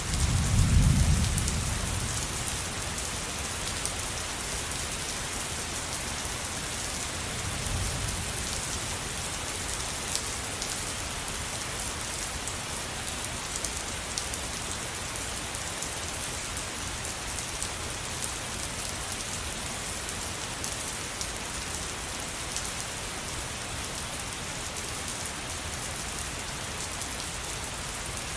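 Steady rain falling, an even patter of drops throughout, with a low rumble of thunder about a second in and a fainter rumble around eight seconds in.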